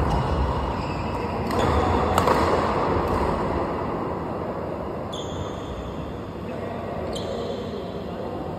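Badminton rackets striking the shuttlecock during a doubles rally: about five sharp hits, one to two seconds apart, with a short ring after the later ones. The hits are over a steady background hiss.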